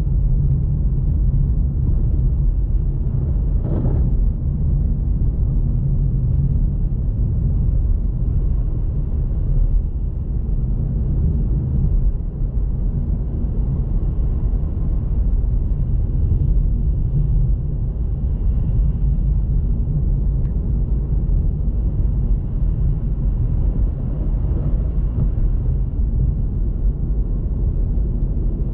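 Steady low rumble of a car driving, engine and road noise, with a brief louder sound about four seconds in.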